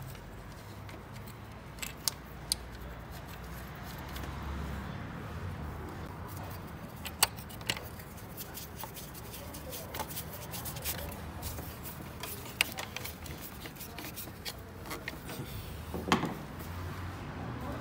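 Metal hand tools and engine parts clinking and tapping during engine reassembly: irregular sharp clicks and clinks over a low steady background, loudest about seven seconds in and again near the end.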